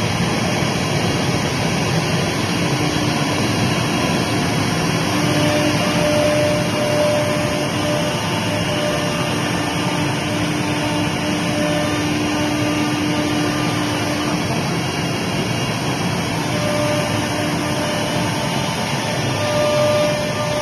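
Woodworking CNC router running, a steady machine noise with faint whining tones that come and go as it works.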